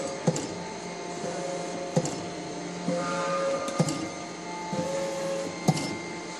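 SAVEMA SVM 53I thermal transfer printer running with its carton feeder and conveyor belt, cycling cartons through. A sharp clack comes about every two seconds, with softer clicks between, over a steady motor hum.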